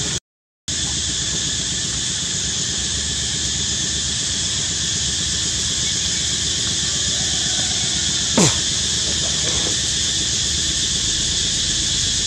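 Steady, high-pitched insect chorus droning, cutting out for about half a second just after the start. A single sharp click comes about eight seconds in.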